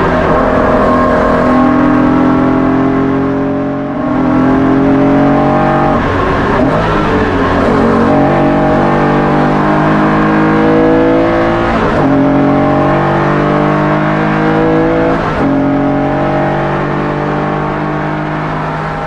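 Porsche 964's 3.8-litre air-cooled flat-six with individual throttle bodies pulling hard through the gears on a race track. The revs climb, then drop back at each of several gear changes, and the engine eases off near the end.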